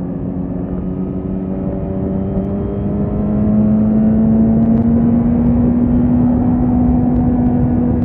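Suzuki GSX-S1000's inline-four engine pulling steadily while the bike is ridden, its note rising slowly as it gathers speed and getting louder about three and a half seconds in, over a steady rush of noise.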